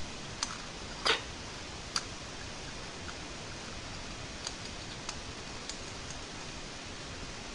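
A woman hiccuping: one sharp hiccup about a second in and a lighter catch about a second later, with a few faint clicks afterwards over a steady hiss.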